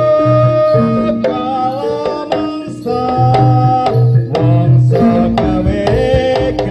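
Live East Javanese jaranan gamelan music. Kendang hand-drum strokes keep the rhythm under a melody line of long held notes, with repeated low tones beneath.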